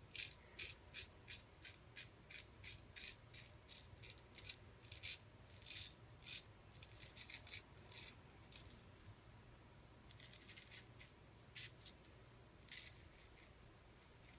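Straight razor scraping stubble through shaving-soap lather on the chin and neck: faint, crisp short strokes, about two a second for the first nine seconds, then fewer and more scattered. The blade was honed at home, and the shaver judges it not quite as sharp as it should be.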